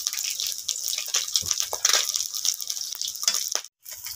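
Shila fish frying in hot oil in a wok: a steady, dense crackling sizzle as the pieces are fried crisp. It cuts out suddenly near the end and comes back quieter.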